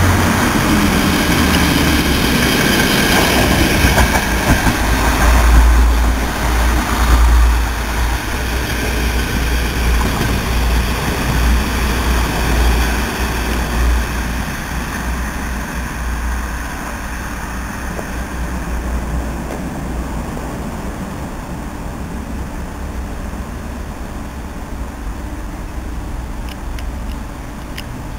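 Regional passenger train running past on the tracks, loudest about five to seven seconds in as a low rumble with rail noise, then fading steadily as it draws away.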